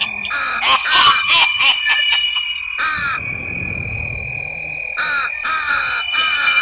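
A cartoon witch's voice coughing in harsh, croaky bursts: a string of coughs in the first two seconds, one at about three seconds, then a quicker run of them near the end, over a steady high tone.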